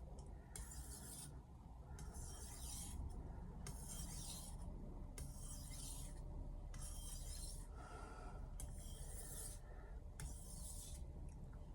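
A 210 mm Misono Japanese knife being drawn over a whetstone in even back-and-forth strokes, a rasping hiss about once a second with short pauses between.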